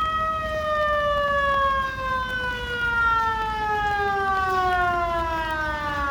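Outdoor warning siren sounding a single steady tone, then slowly falling in pitch as it winds down.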